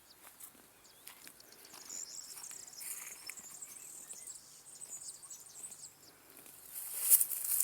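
High-pitched insect chirping in open country, with a louder rush of noise about seven seconds in.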